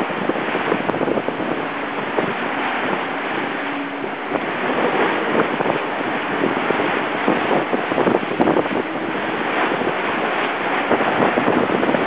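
Wind buffeting the microphone over the rush and splash of water along the hull of a Class 40 racing yacht sailing fast, throwing spray across the deck. A loud, steady roar that surges and eases with the waves.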